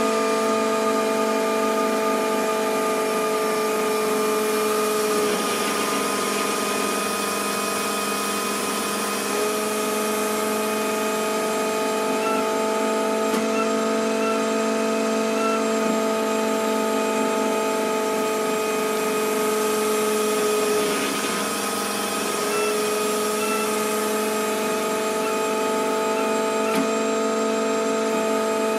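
Hydraulic test rig running with a steady mechanical whine of several tones over a noisy hiss, the tone shifting for a few seconds around 5 s in and again briefly around 21 s, as the flow through the proportional valve changes.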